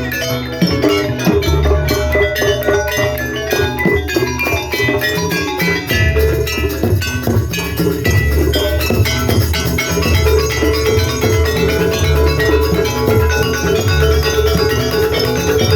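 Live jaranan music from a gamelan-style ensemble: drums with tuned metal mallet percussion. A sustained note joins the texture about ten seconds in.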